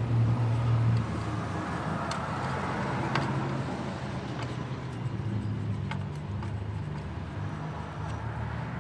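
Steady low rumble of a motor vehicle's engine running nearby, with a few faint clicks from a socket wrench loosening oil-pan bolts.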